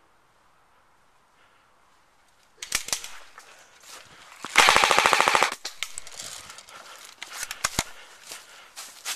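JG G3 electric airsoft rifle firing: a few sharp single clacks, then a loud full-auto burst of about a second, followed by scattered sharp clicks of further shots.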